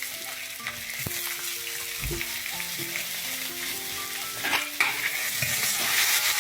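Food sizzling and frying in a pot while it is stirred, with a few sharp spatula knocks against the pot. A simple tune of held notes plays faintly underneath.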